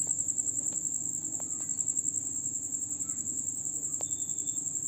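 Insects trilling: a steady, fast-pulsing high chirp, with a faint low hum underneath.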